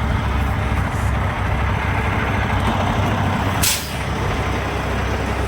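Semi-truck diesel engine idling steadily, with a short hiss of the air brakes about three and a half seconds in.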